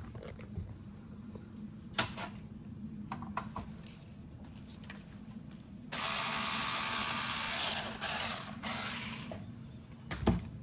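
Cordless electric screwdriver running for about two seconds, then again for about a second, backing out the screw that holds an expansion card's bracket. A few light handling clicks come before it and a knock near the end.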